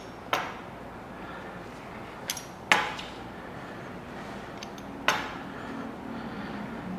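A knife knocking sharply against a hard countertop four times, two of the knocks close together, as rolled dough is cut into strips.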